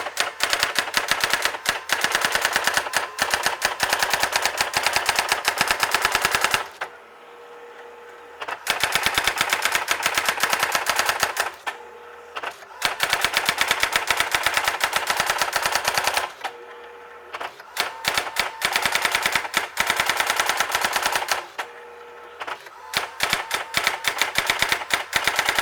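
Brother GX-6750 electric daisy wheel typewriter printing in long, rapid bursts of strikes, like a machine-gun rattle. Between bursts there are short pauses of one to two seconds where only a faint steady hum is left.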